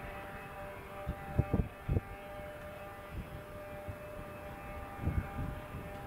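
Steady drone of distant vehicle engines, a held whine with several even tones. Wind buffets the microphone in a few thumps, a couple about a second and a half in and more about five seconds in.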